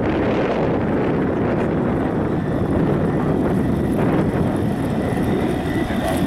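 Steady wind noise buffeting the microphone, with a faint, even high whine coming in near the end.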